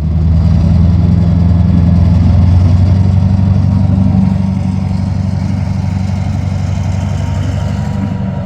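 Diesel locomotive engine running close by, a loud steady low drone that eases slightly after about four seconds.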